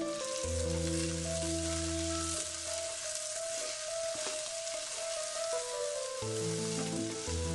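Cooked brown chickpeas with grated coconut and tempering sizzling in a hot pan of coconut oil, a steady frying hiss. Soft background music of held notes plays under it.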